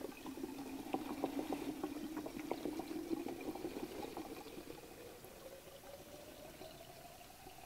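Two-stroke fuel mix being poured into a Stihl MS391 chainsaw's fuel tank. The pitch of the pour rises steadily as the tank fills, with small gurgles in the first few seconds, and the sound grows fainter towards the end.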